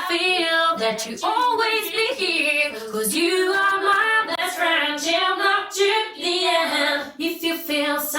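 Solo female a cappella vocal, a woman singing a sustained English pop melody unaccompanied, played back through a convolution reverb set to an empty-room impulse, which gives the dry voice room reverberation.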